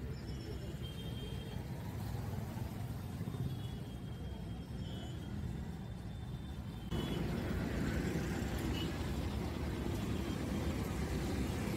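Steady rumble of road traffic, with a few faint short high tones in the first half; the noise jumps louder and fuller about seven seconds in.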